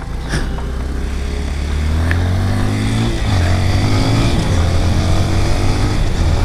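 Honda CRF230L's single-cylinder four-stroke engine under way, pulling up through the gears: its pitch climbs, drops at an upshift about three seconds in, climbs again, then settles into a steady cruise.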